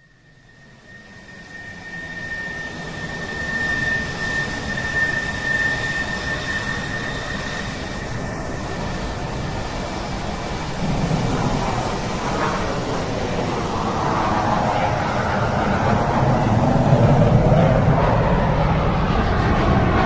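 Jet airliner engines running, fading in from silence and growing steadily louder. A high steady whine sounds over the first several seconds.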